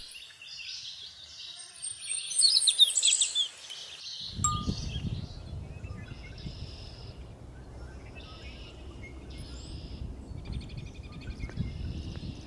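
Songbirds singing in short high phrases, with chime-like chirps in the first few seconds. About four seconds in, wind rumble on the microphone starts under the birdsong, and one bird gives a fast trill near the end.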